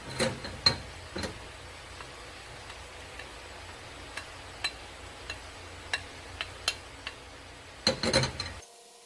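Wooden spoon scraping and tapping against a ceramic bowl: a scatter of light clicks and knocks, busier in the first second and again near the end.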